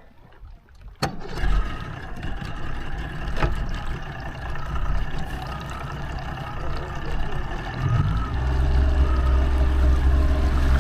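A sharp click about a second in, then a boat motor running with a steady hum. The motor grows louder and heavier about eight seconds in.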